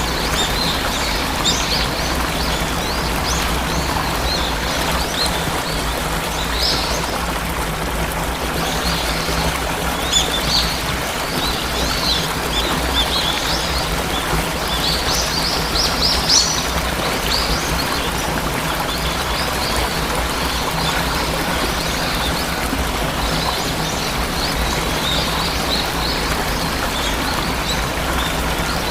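Steady rush of falling water from a waterfall, with many small birds chirping over it in scattered flurries, the busiest stretch coming about midway.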